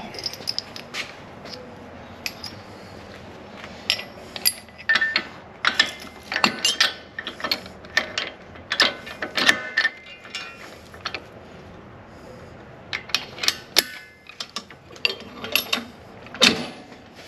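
Irregular metal clanks and clicks of a tractor's three-point hitch top link and its pins being handled and fitted onto the hitch.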